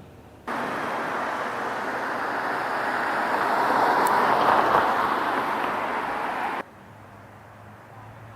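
Street traffic noise: a vehicle passing, its noise swelling to a peak about four seconds in and easing off, starting and cutting off suddenly.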